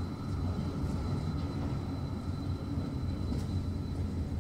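Electric city tram approaching slowly, a steady low rumble with a thin high whine above it.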